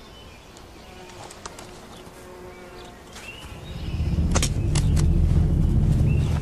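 Quiet forest ambience with a few short bird chirps, then a loud low rumble that swells up about four seconds in and holds, with a few sharp clicks over it.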